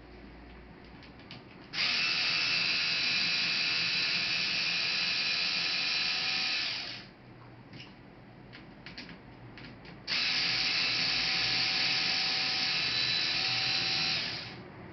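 Small electric screwdriver running in two steady bursts of about five and four seconds, with light clicks of handling between them.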